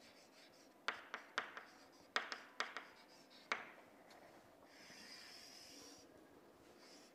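Chalk writing on a chalkboard, faint. It starts as a run of sharp taps and short scratches as letters are formed, then about five seconds in becomes a longer steady scrape as a line is drawn under the heading.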